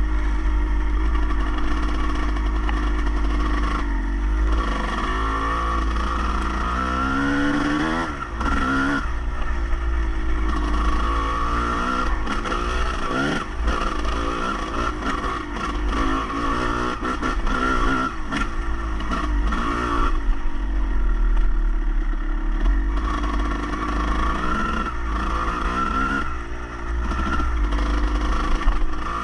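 An engine running, its pitch rising and falling repeatedly as it revs, over a steady low rumble.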